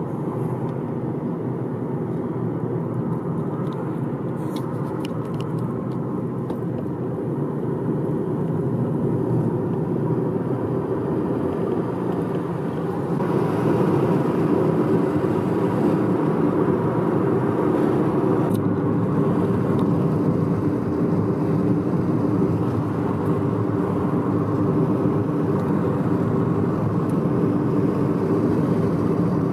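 Steady engine and tyre road noise heard from inside a moving car, growing a little louder about thirteen seconds in.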